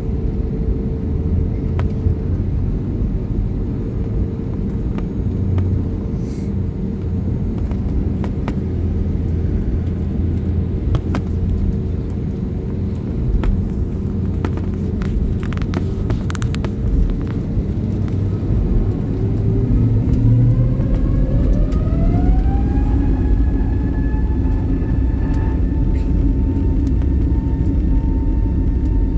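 Airbus A320 jet engines and cabin rumble heard from inside the cabin over the wing: a steady low rumble as the airliner turns onto the runway, then about two-thirds of the way in the engines spool up, a whine rising in pitch over a few seconds and then holding steady at takeoff thrust as the takeoff roll begins.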